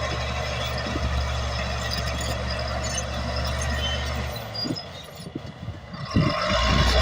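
Caterpillar D8 bulldozer's diesel engine running steadily with a low hum. It drops away about four seconds in and comes back louder near the end.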